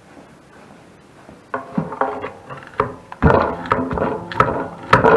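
A long flat metal tool scraping and knocking in the gasket channel of a wood furnace's metal clean-out door, clearing out old gasket and cement. It starts about a second and a half in as irregular scrapes and sharp clicks, with the loudest knocks in the second half.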